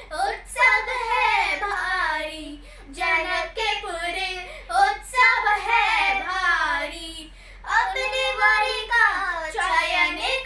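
Two children singing a devotional song together, unaccompanied, in phrases with brief pauses about three and seven and a half seconds in.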